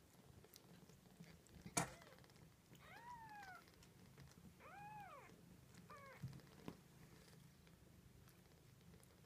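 Newborn kitten mewing three times, short high cries that rise and then fall, about a second and a half apart, over a faint low purr. A single sharp knock comes just before the first mew and is the loudest sound.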